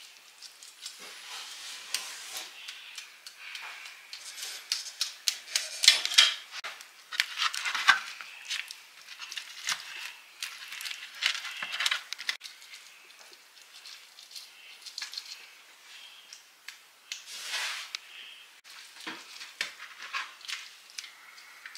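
Kitchen work noises: scattered light clicks, taps and short scraping swishes of a brush and utensils against a roasting pan as glaze is brushed onto ribs.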